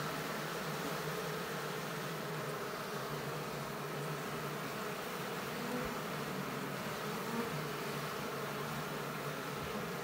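A colony of Asian honeybees (Apis cerana) buzzing at their exposed comb: a steady, continuous drone.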